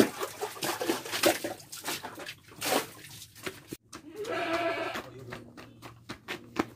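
Water splashing and a plastic bucket and dipper knocking as water is scooped up and the bucket carried off in a hurry, with a short pitched cry a little after four seconds in.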